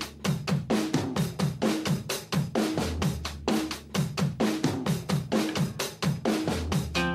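Background music: a fast, steady drum-kit beat with kick, snare and cymbals over a repeating bass line.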